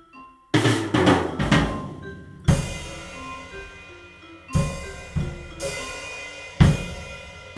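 Instrumental intro of a band's song: a drum kit comes in with a fill about half a second in, then plays a beat with heavy accented hits roughly every two seconds over a simple stepping melody.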